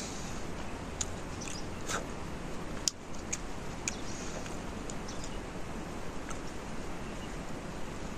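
Close-up mouth sounds of a man chewing juicy mandarin orange segments: short wet clicks and smacks every second or so, over a steady low rumble of wind on the microphone.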